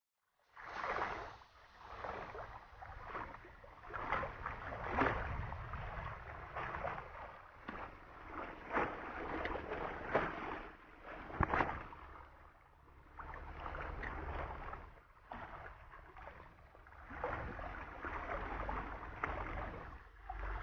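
Small sea waves lapping and washing against shoreline rocks, swelling and ebbing every second or two with a few sharper splashes, over a low rumble. It starts about half a second in.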